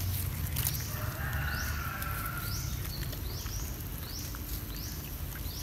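Outdoor ambience: a high-pitched rising chirp repeating a little more than once a second over a steady low rumble, with a faint drawn-out squeal about a second in.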